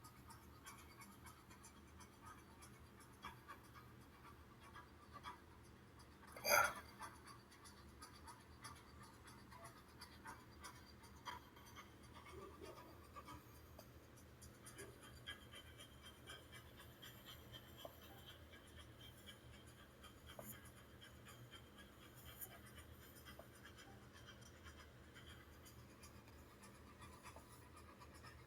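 Near silence: faint room tone with scattered small clicks and light scratching. One sharp, much louder click or knock comes about six and a half seconds in.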